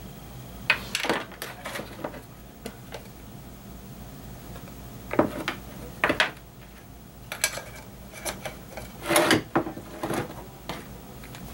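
Scattered short taps, knocks and scrapes of a brush and small containers handled on a workbench while fiberglass resin is brushed onto a mat, with the loudest knocks about five and six seconds in and a longer scrape about nine seconds in.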